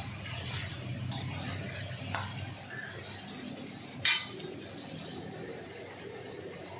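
Slotted metal spoon stirring raw chicken pieces and onions in a steel kadai, metal scraping and knocking on metal, with one sharp clink of the spoon against the pan about four seconds in.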